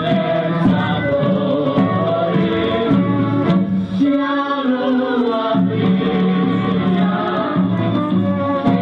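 Music: a woman and a man singing a duet over instrumental backing with a repeating bass line.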